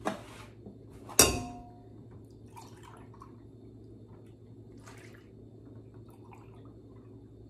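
Milk pouring from a plastic gallon jug into a glass measuring cup, a faint trickling with a few soft splashes. About a second in comes a sharp glass clink with a brief ring, the loudest sound.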